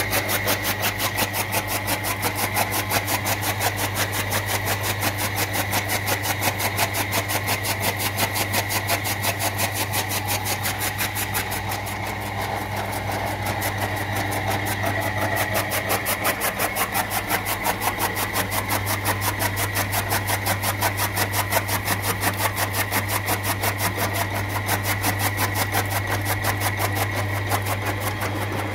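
Electric chaff cutter (toka machine) running: its 2.5 hp electric motor hums steadily while the belt-driven flywheel's blades chop green fodder in a rapid, even beat.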